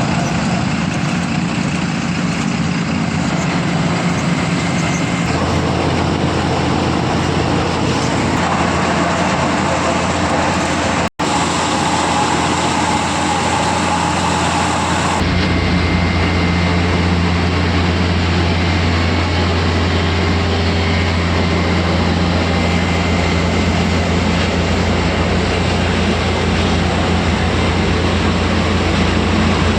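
Milling machinery running steadily with a loud, even mechanical hum and grinding noise. Its tone shifts twice and cuts out for an instant about a third of the way through.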